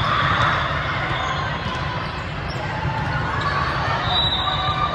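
Sports hall game sounds: a ball bouncing on the court amid a steady din of players and spectators' voices.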